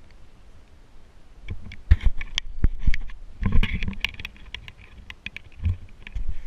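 Handling noise of a handheld camera being picked up and turned: irregular knocks, rubs and clicks, with a cluster of louder bumps a couple of seconds in and again about halfway through.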